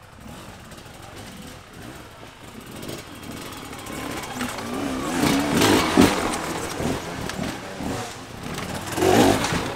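Dirt bike engine revving up and down, growing louder from about three seconds in, with a sharp knock about six seconds in.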